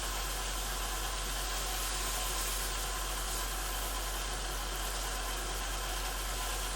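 Range hood extractor fan running with a steady whir and hum, loud and, by the cook's account, not working properly; steaks sizzle in the frying pan beneath it.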